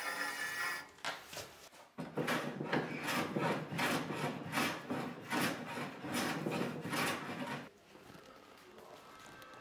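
Hand jack plane taking repeated strokes along a long mahogany boat stringer, about two shaving strokes a second, then stopping near the end.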